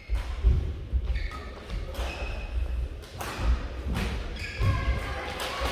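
Badminton rally: sharp racket-on-shuttlecock hits about once a second, with players' footsteps thudding on the court and short squeaks in between.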